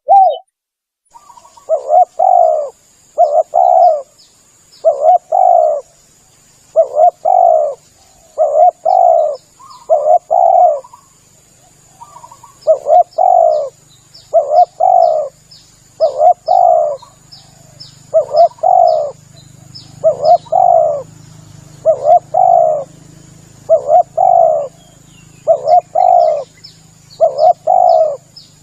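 Spotted dove (tekukur) cooing over and over, each call a low, throaty double-note phrase, about one every second and a half. Faint high chirps and a thin steady high whine run in the background.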